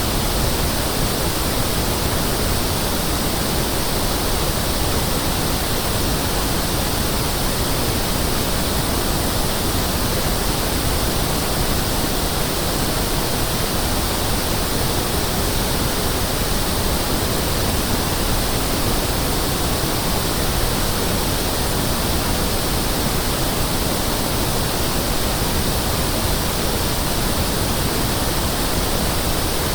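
Pink noise test signal: a steady hiss spread evenly across the whole audible range, with equal level in every octave band. It is the reference signal used to check loudspeakers, sound systems and room acoustics.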